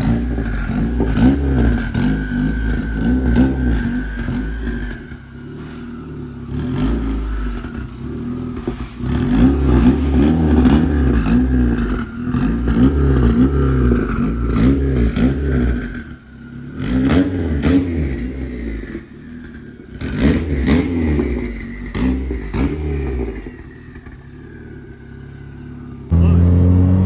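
Turbocharged Honda Civic being driven, its engine repeatedly revving up and easing off, with a high whine over it for the first several seconds. Near the end the sound switches abruptly to a loud, steady drone.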